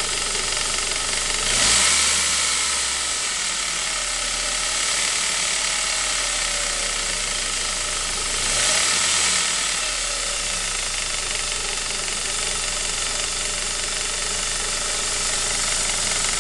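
Saab 9-5's B235 turbocharged four-cylinder engine idling with a strange mechanical noise that shows only on a cold engine, which the owner suspects may be the timing chain. The revs are blipped briefly twice, about seven seconds apart.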